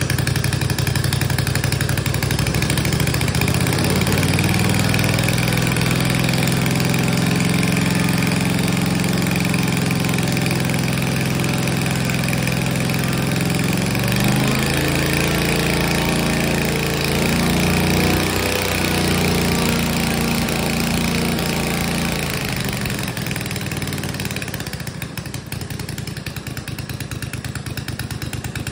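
Kolm 155cc two-cylinder inline four-stroke engine running on the ground and driving a four-bladed variable-pitch propeller. Its speed rises a few seconds in, holds with a few wavering changes midway, then drops back and quietens near the end.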